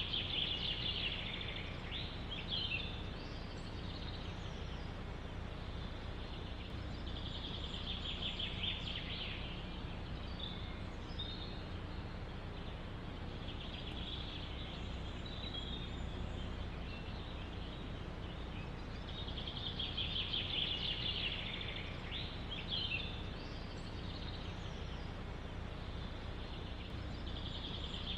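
Songbirds singing, one repeating a short, rapid trilled phrase about every six seconds, with other brief chirps between, over a steady low rumble of wind in the forest.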